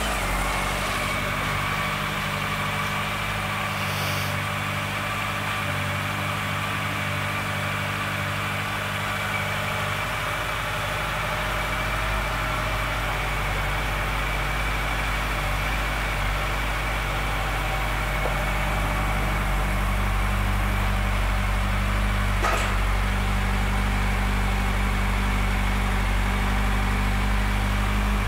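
A 2014 Honda CB1100's air-cooled inline-four engine idling steadily, just started. Its low rumble grows fuller about ten seconds in, with a faint click a little past twenty seconds.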